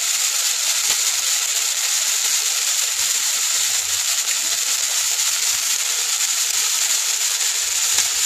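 Sprouted mung beans and sliced bell peppers sizzling in a little hot sunflower oil in a non-stick wok: a steady hiss with fine crackles.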